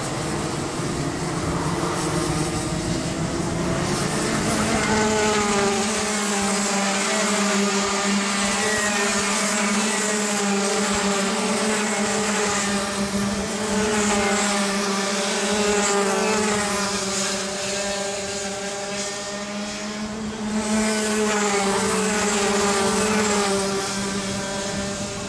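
Several Rotax Max Junior 125cc two-stroke kart engines racing, their buzzing pitch rising and falling as the karts accelerate and lift through the corners.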